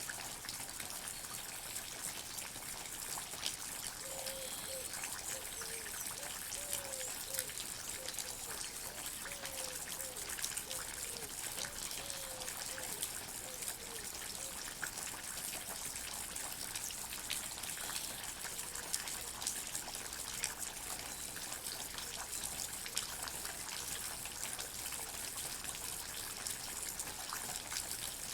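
Water drops falling in a forest: many small drips and taps over a steady watery hiss. A string of short, low, falling notes repeats from a few seconds in until about halfway through.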